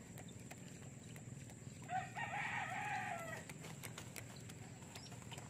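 A rooster crowing once, faintly, starting about two seconds in and lasting about a second and a half.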